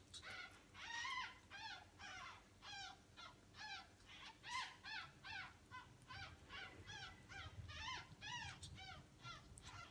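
Young ferret squeaking over and over, short rising-and-falling calls about three a second, while it is syringe-fed.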